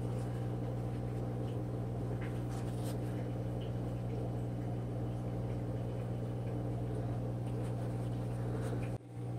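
Steady low electrical hum with a few faint soft ticks, and no speech.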